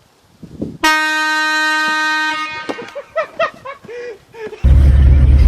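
Air horn blasting once: a loud steady tone lasting about a second and a half, starting about a second in. A voice follows, and a loud deep rumble starts near the end.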